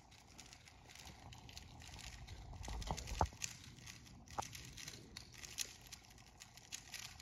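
Faint, rapid, irregular clicking of 3x3 speedcubes being turned at speed.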